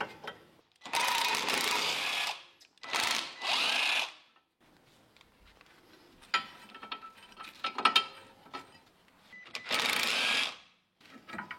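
Power ratchet run in three short bursts of about a second each, spinning out the 16 mm bolts that hold a front suspension ball joint, with a few sharp metal clicks from the tools between bursts.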